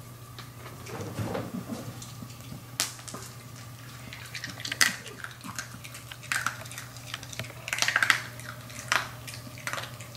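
Maltese dogs' claws clicking and tapping on a marble tile floor: scattered sharp clicks, some in quick clusters, over a faint steady hum.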